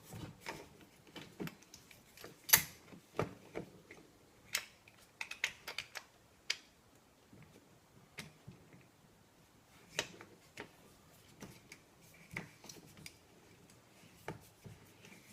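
Irregular clicks and light knocks of a flathead screwdriver turning the long stock bolt into a shotgun receiver, with the loudest click about two and a half seconds in. The first turns go roughly, close to stripping the screw.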